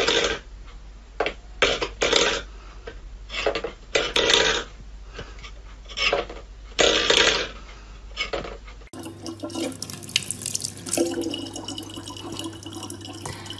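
A cat paws a metal food bowl about on a wooden floor: a string of short clanks and scrapes, about one a second. About nine seconds in, the sound changes to a thin stream of water from a tap running into a plastic bottle, with a steady low hum under it.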